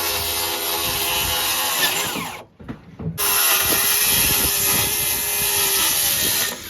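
Handheld power tool running in two long runs of about three seconds each, each ending as the motor winds down with a falling whine.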